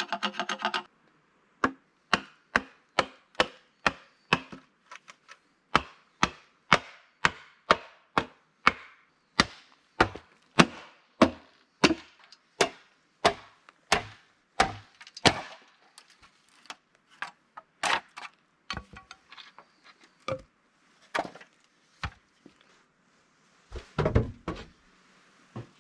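A hand tool striking wood repeatedly: sharp knocks at about two a second for some fourteen seconds, then slower, uneven strikes with pauses, and a quick cluster of knocks near the end.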